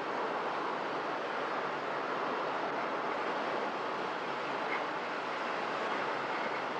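Steady road and wind noise from inside a moving car, with tyres running on asphalt.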